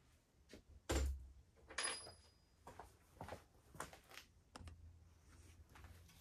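Faint, scattered knocks and clicks of tools and parts being handled on a workbench, with one dull thump about a second in and a sharper clink just before two seconds.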